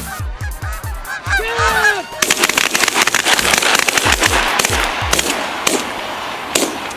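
Canada geese honking as a flock comes into the decoys, then from about two seconds in a rapid volley of shotgun blasts from several hunters firing at once, with the geese still calling through it.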